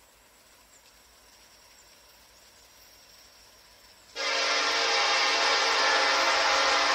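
Faint quiet at first. About four seconds in, a train's locomotive air horn starts suddenly and holds a loud, steady chord.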